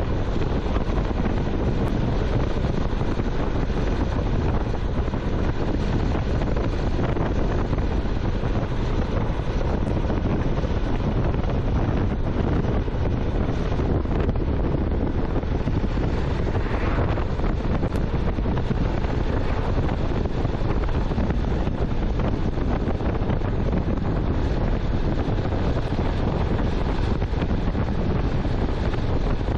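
Steady wind rushing over the microphone of a motorcycle riding at speed, a dense low noise with no break.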